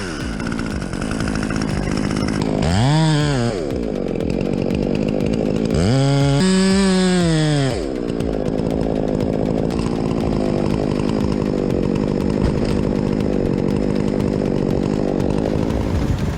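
Two-stroke chainsaw revving up and dropping back twice, then running steadily.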